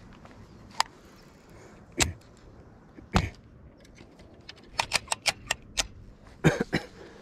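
Sharp, irregular clicks and taps from a fishing rod and baitcasting reel being handled close up: three single clicks spaced about a second apart, then a quick run of clicks about five seconds in and a few more near the end.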